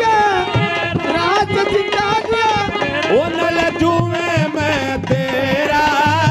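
Instrumental Haryanvi folk music from a saang troupe: a held melody line over steady hand-drum strokes, with no singing.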